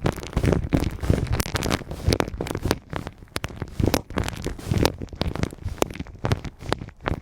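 Close-up ear massage on a microphone: irregular rubbing, crackling and soft thuds as hands work over it.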